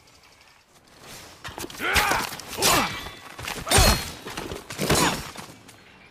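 Sword combat sound effects for a heavy two-handed odachi: about four strikes roughly a second apart, each a sudden hit carrying a pitched sound that rises and falls, the third the loudest.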